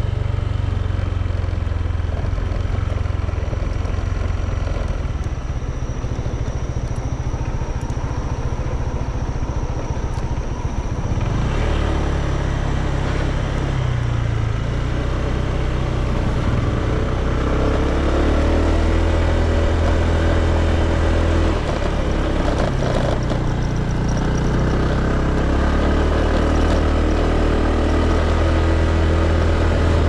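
Motor scooter engine running while riding, its pitch rising and falling with the throttle. It gets a little louder and busier about a third of the way in.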